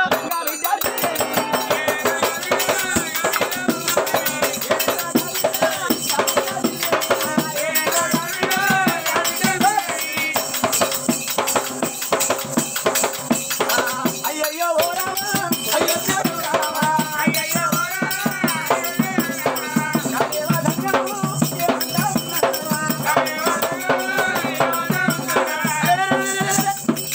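Telangana Oggu Katha folk music: voices singing over a dolu barrel drum and fast jingling percussion. The music breaks briefly about halfway through.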